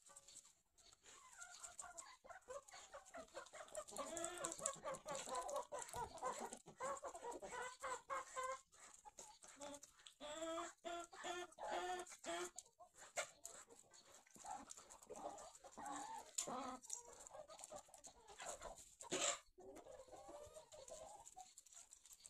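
Hens clucking and calling in a farmyard flock, with short clicks throughout and one sharp knock about nineteen seconds in.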